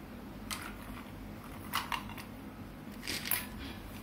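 Colour pens and crayons clicking and rattling against each other as a hand rummages through a pile of them on a table: a few short clatters, the loudest a little after three seconds in.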